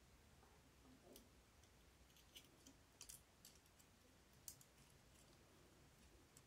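Near silence with a few faint, scattered clicks of fingers handling the metal and plastic parts of a cassette deck's tape mechanism as a drive belt is worked onto its pulleys.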